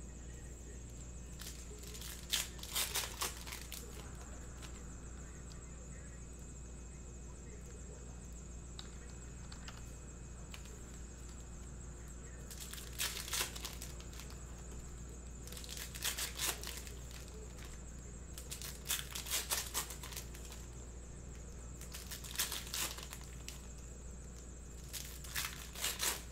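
Foil wrappers of Bowman Sapphire baseball card packs being torn open and crinkled by hand, in about six short bursts, with a long quiet stretch in the first half.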